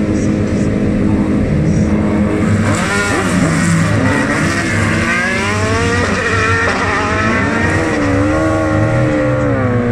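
Single-seater formula race car engine idling steadily, then from about three seconds in revved up and down again and again in a series of rises and falls, held at raised revs near the end.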